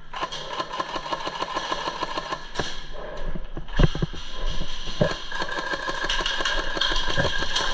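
Airsoft electric rifles firing on full auto: a fast, even rattle of shots throughout, with a few louder knocks about two and a half, four and five seconds in.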